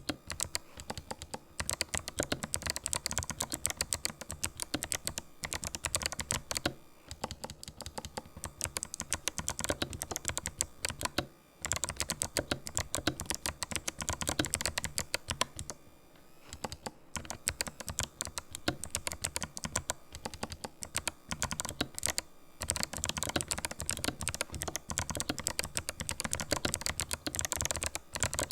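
Typing on a Ninja 87 Pro mechanical keyboard with fully lubricated Kailh white clicky switches: a fast, continuous run of sharp key clicks, broken by short pauses about 11, 16 and 22 seconds in.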